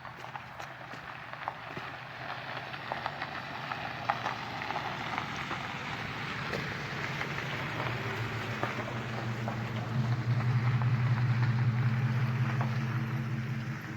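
A motor vehicle approaching: a rising hiss of tyre or road noise with small clicks, then a steady low engine hum that grows loudest over the last few seconds and drops off at the end.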